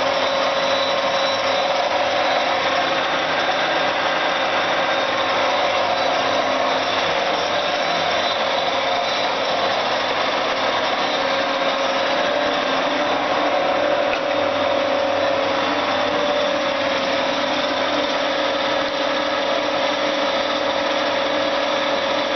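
Cincinnati 205-12 MI universal milling machine running steadily, a constant mechanical hum with a steady whine.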